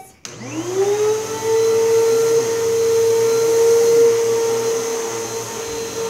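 Vacuum cleaner switched on: its motor whine rises in pitch as it spins up just after the start, then runs steadily with a loud hiss.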